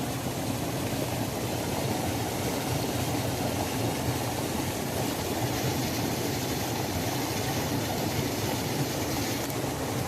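Waterfall: a steady, deep, even rush of falling water with no breaks.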